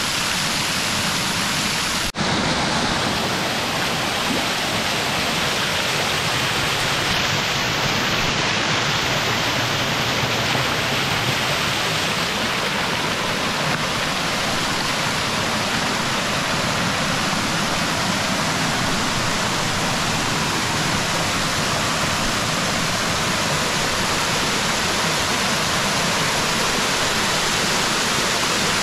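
Small waterfall cascading over rocks, a steady rush of water, broken by a brief dropout about two seconds in.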